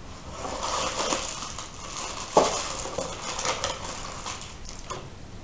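Cardboard box and plastic packaging being handled, rustling and crinkling as items are pulled out, with one sharp tap about two and a half seconds in.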